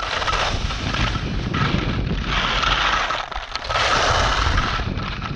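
Skis scraping and carving over firm snow, a hiss that swells and fades with each of about four turns, over a steady low rumble of wind buffeting the camera's microphone.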